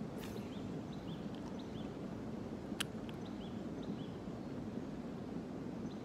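Steady low outdoor rumble with faint short bird chirps scattered through it, and a single sharp click about three seconds in.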